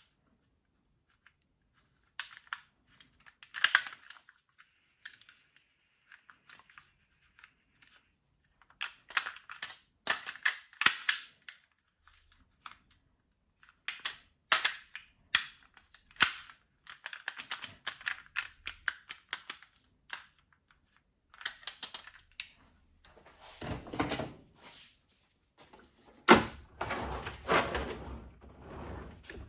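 Irregular clicks, knocks and scraping from hand work on the DeLonghi ESAM 5600 coffee machine's parts during disassembly, with a sharper, louder knock near the end.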